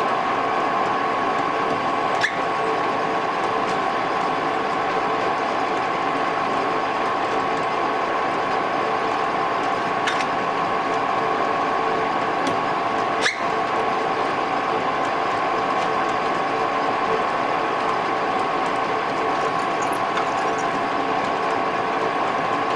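Metal lathe running at a steady whine, its spindle turning a collet blank while a twist drill in the tailstock chuck drills the bore just under 6 mm. Three short sharp ticks break in along the way.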